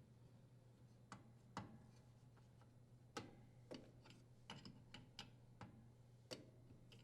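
Near silence with about ten faint, irregular clicks and light taps from hands and a tool working a dishwasher's water supply line fitting at the inlet valve.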